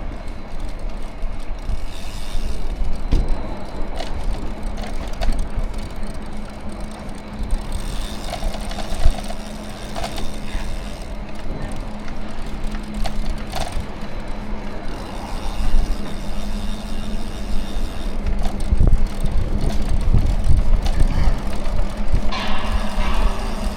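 City road traffic heard from a moving bicycle: a continuous low rumble with a steady hum underneath and a few sharp clicks.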